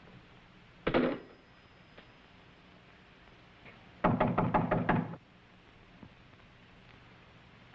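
A single sharp knock or thud about a second in, then a rapid run of about eight knocks lasting about a second, starting about four seconds in.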